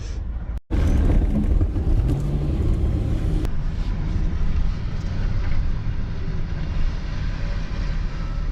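Truck engine and road rumble at low speed, a steady low rumble, with a brief break about half a second in.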